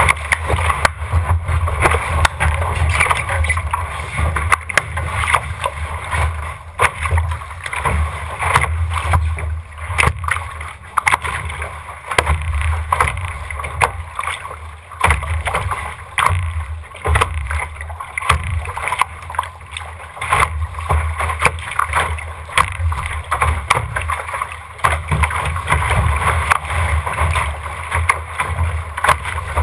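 Water rushing and slapping against the hull of an RS600 sailing dinghy as it sails fast through chop, with frequent sharp hits of spray and waves on the deck. Wind buffets the deck-mounted camera's microphone in a steady low rumble.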